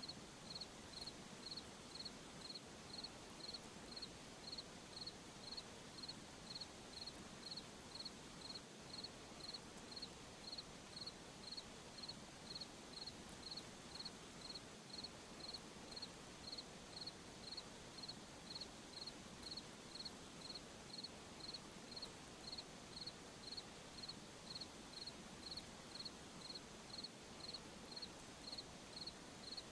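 A cricket chirping steadily, about two short high chirps a second, over a faint night-time hiss.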